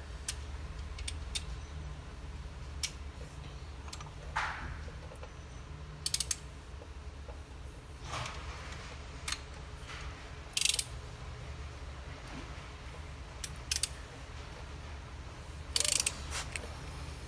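Hand tools being handled: a torque wrench being set to 72 foot-pounds and fitted, giving scattered ratchet-like clicks and a few brief metal scrapes over a steady low hum.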